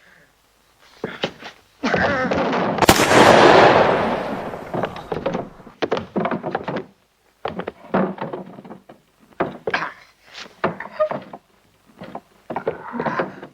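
Fight sound effects: a loud crashing impact about three seconds in that trails off slowly, then a run of short thuds and blows.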